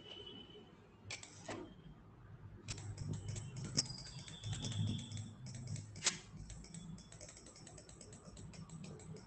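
A computer mouse being clicked rapidly and repeatedly, a few separate clicks and then a dense run of small clicks from about three seconds in, as short strokes are drawn one after another. A low hum runs underneath.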